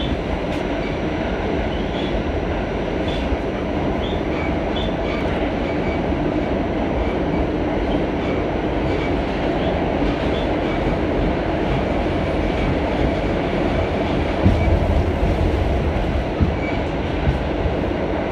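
A-train subway car running at speed through the tunnel, heard from inside the car: a steady low rumble of wheels on rail with faint scattered clicks and brief high squeaks, and a couple of thumps about two-thirds of the way through.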